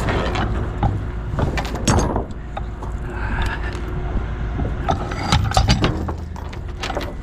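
Steel wire rope, chain and a snatch block being handled on a wooden trailer deck: scattered metallic clinks and scrapes, busiest about a second and a half in and again around five seconds. Under them an engine runs steadily at idle.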